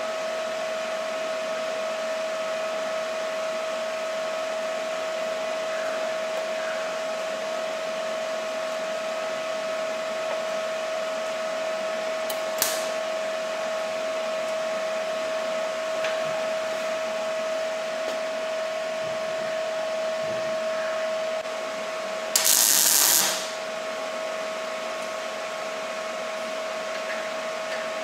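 A steady machine whir with a constant hum tone. A sharp click comes a little under halfway, and a loud hissing burst lasts about a second past the three-quarter mark.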